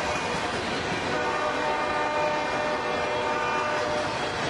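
N scale model freight train rolling past on the track, a continuous running noise of its wheels and motors. A steady chord of horn-like tones sounds from about a second in until about four seconds in.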